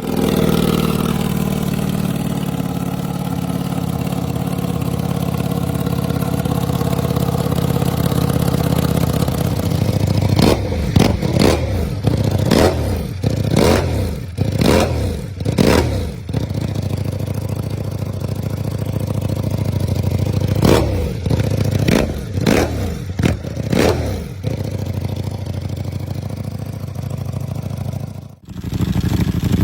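Ducati Panigale V4 SP2's V4 engine through an aftermarket exhaust, idling steadily and then given two series of quick throttle blips, each rev rising and falling sharply before dropping back to idle. Near the end the sound cuts out for a moment, then another engine idle takes over.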